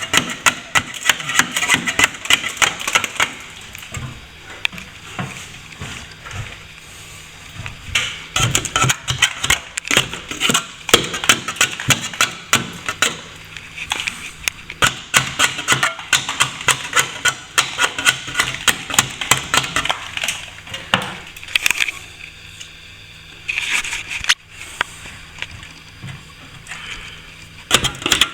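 Plastering tools working against a plaster wall: rapid, irregular scrapes and clicks of metal on plaster, with a couple of short pauses near the end.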